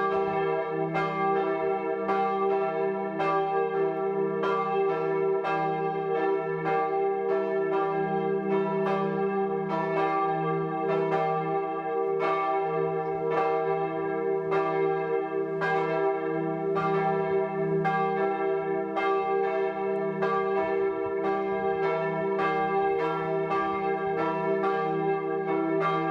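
Two swinging church bells, the tower's bells 3 and 2, pealing together: strokes come more than once a second in an uneven, overlapping rhythm, and each bell's hum rings on between strokes.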